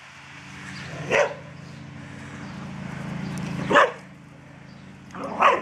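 A dog barking during rough play: three sharp barks, about a second in, near four seconds and near the end, over a low steady hum.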